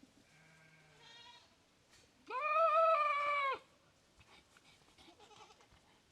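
A goat bleating: one long, loud bleat starting about two seconds in, with fainter animal calls before it.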